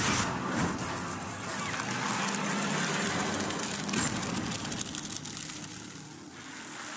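Film sound effects of thrashing vines: a dense rushing, rustling noise over a low drone, loudest at the start and easing off toward the end.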